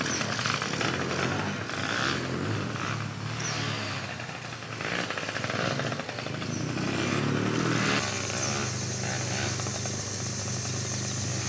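Yamaha PW50 youth dirt bike's small two-stroke engine running, its note rising and falling as the rider works the throttle; from about two-thirds in the engine note holds steadier.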